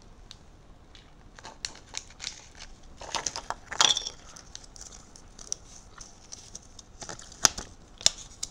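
Small clear plastic bags and a folded paper leaflet being handled and opened by hand, crinkling and rustling in short irregular spells, loudest about three to four seconds in and again near the end.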